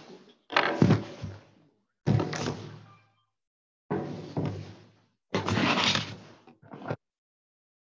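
A series of knocks and thumps, a new one about every second and a half, each fading briefly before cutting off abruptly.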